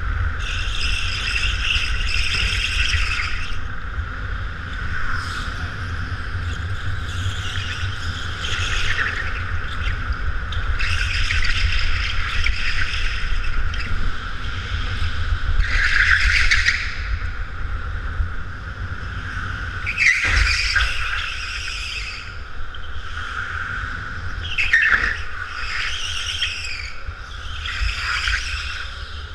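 Go-kart running flat out, a steady whine under a constant low rumble of vibration, with tyre squeals through the corners, each lasting a second or two, about eight times.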